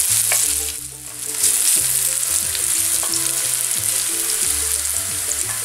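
Garlic and finely chopped shallot sizzling in extra-virgin olive oil in a stainless steel wok-style pan, stirred with a wooden spoon as they brown. The sizzle dips briefly about a second in.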